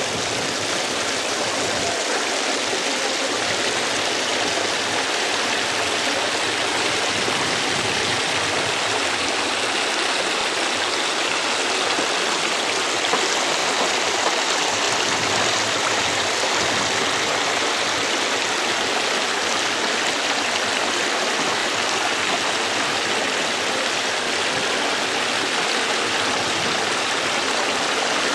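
Steady rushing of running water, an even hiss that holds level throughout.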